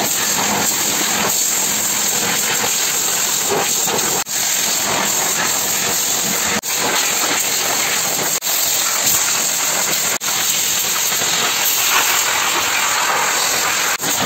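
Car-detailing turbo dryer blowing hot air through its hose nozzle to dry a washed engine bay: a steady, loud rush of air with a few brief dropouts.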